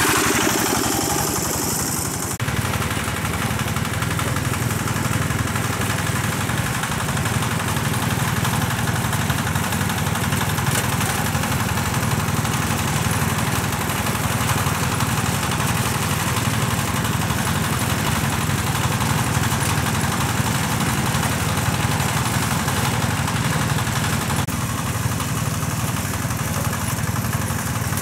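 Small petrol engine of a water pump running steadily, with a rushing hiss that stops about two seconds in.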